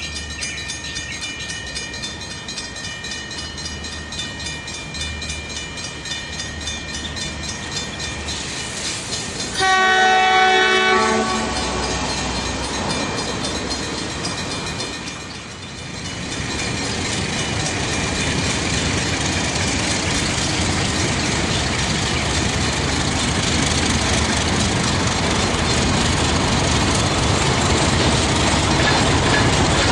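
ALCo FPD-9 diesel locomotive arriving with its train: a horn blast of about a second and a half some ten seconds in, then wheels clattering over the rail joints, growing louder as the train draws near.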